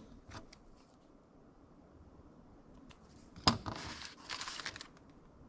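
Hands handling brake master cylinder parts while greasing the seals: a faint click, then a sharp click about three and a half seconds in, followed by a second or so of crinkling rustle.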